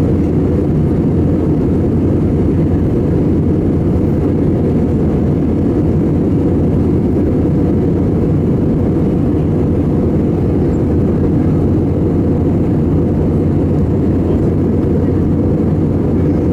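Steady cabin noise inside an Airbus A320 in flight: the even, low roar of the jet engines and airflow, with a faint steady hum.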